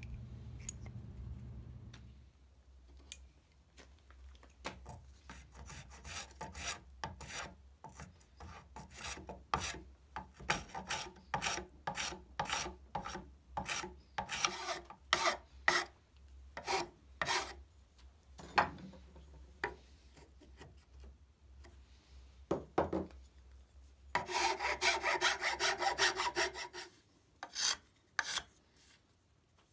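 Hickory hammer handle clamped in a vise being filed by hand: a long series of separate filing strokes on the wood, irregular at about one or two a second, with a run of quick strokes near the end as the end of the handle is shaped down.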